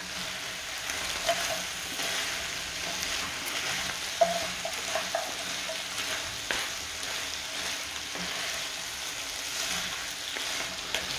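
Frozen broccoli, cauliflower and carrot pieces sizzling in a hot frying pan over fried minced meat and rice while a wooden spatula stirs them, with a couple of sharp clicks of the spatula against the pan. The vegetables are going in frozen and thawing in the hot fat.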